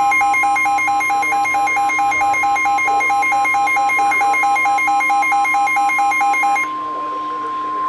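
NOAA Weather Radio's steady 1050 Hz warning alarm tone, the signal that a warning is being broadcast. Over it a weather radio receiver's electronic alert beeps rapidly, alternating between a low and a high pitch, and stops near the end, leaving the steady tone on its own.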